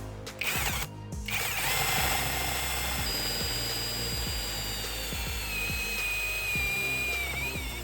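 Electric drill spinning a homemade hole saw with a sharpened metal rod cutter into wood: a short burst, then a steady high whine whose pitch slowly falls over the last few seconds.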